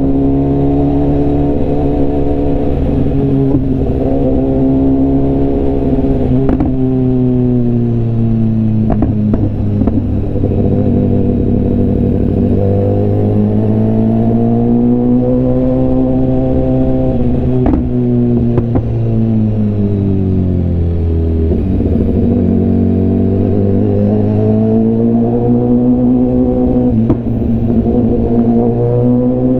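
BMW S1000RR inline-four engine and exhaust heard from the rider's seat, running at low revs in slow traffic. The engine speed eases down and picks back up several times, and a few sharp clicks are heard.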